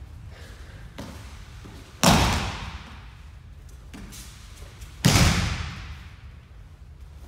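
Two loud slaps of aikido breakfalls, a body hitting the tatami mats as it is thrown, about three seconds apart, each echoing briefly through the hall. A lighter knock comes about a second before each.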